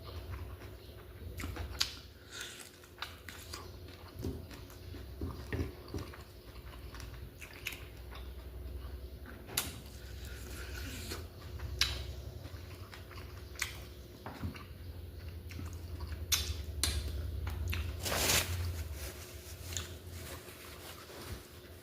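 A person eating close to the microphone, chewing and biting, mukbang-style, with small sharp mouth clicks and smacks scattered throughout. There is a longer, louder noisy burst near the end.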